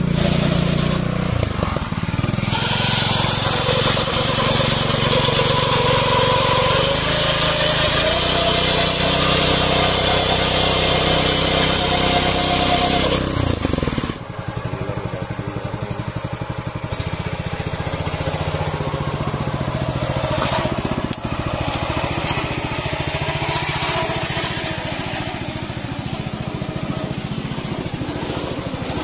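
Yavuz 300 two-wheel tractor (power tiller) engine running steadily while it pulls a trailer loaded with heavy firewood logs. About halfway through the sound drops suddenly in level; after that the engine is heard with a plain, rapid firing beat.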